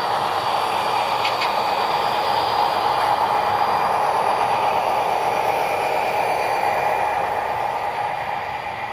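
Sound-equipped HO-scale EMD tunnel motor diesel locomotives passing close by, their Soundtraxx Tsunami decoders playing diesel engine sound through small onboard speakers over the rolling of model wheels on track. The sound fades near the end as the locomotives move away.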